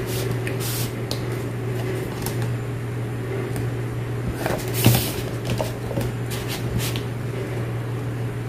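Thin clear plastic chocolate-egg mould clicking and crackling as fingers press along its sides and handle it, with the loudest knock about five seconds in. A steady low hum runs underneath.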